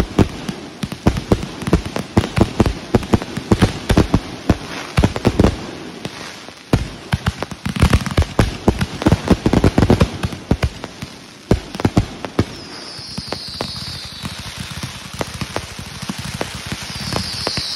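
Aerial fireworks going off in a rapid barrage of sharp bangs with crackling. The bangs thin out about two-thirds of the way through, and high whistles falling in pitch come in, repeating toward the end.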